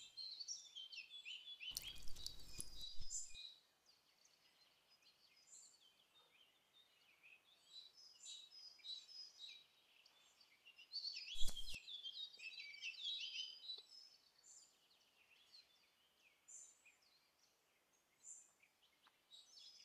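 Faint songbirds chirping and trilling in a chorus of short high calls, with two brief noisy bursts, one about two seconds in and another about halfway through.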